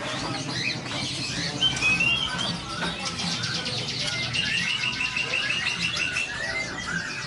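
Many caged songbirds chirping and calling at once, with a run of quick repeated notes in the second half.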